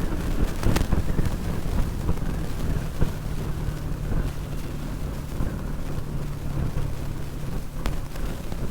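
Bajaj Pulsar NS200's single-cylinder engine running steadily at high speed under full throttle, with wind buffeting the microphone. A few sharp clicks are heard, one about a second in and another near the end.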